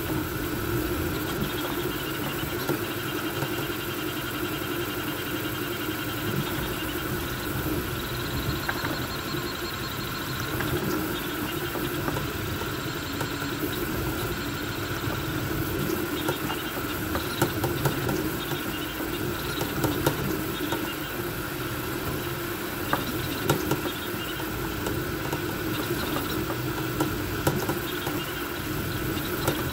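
Voron V2.4 3D printer running a fast print: its cooling fans hum steadily while the stepper motors give short pitched whines that change with each toolhead move, with scattered small clicks.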